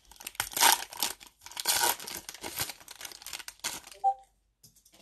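Foil wrapper of a Mosaic basketball card pack being torn open by hand, crinkling and ripping for about four seconds before stopping.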